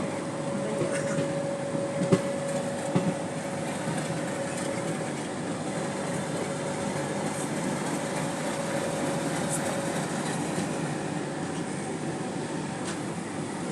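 Passenger train noise: a steady rumble and hiss with a thin steady hum that stops about ten seconds in, and two short knocks around two and three seconds in.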